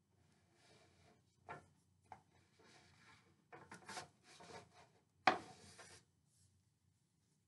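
Wooden panels of a model synagogue being handled and slid into place: scratchy rubbing of wood on wood with a few light knocks, and a louder scrape a little over five seconds in.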